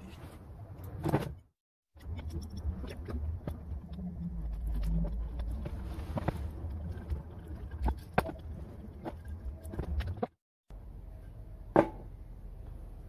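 Assorted knocks, clicks and clattering of workshop parts being handled and put together, with a low rumble in the middle and two abrupt cuts to silence.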